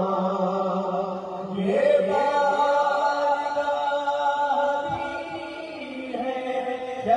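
Male voice chanting a noha, a Shia mourning lament, into a microphone through the hall's loudspeakers without instruments. It is sung in long, drawn-out held notes, and the pitch steps up about two seconds in.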